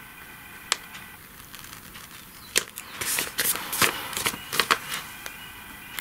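Small scissors snipping the edges off a folded paper envelope: a couple of single snips, then a quicker run of cuts with paper rustling from about three to five seconds in.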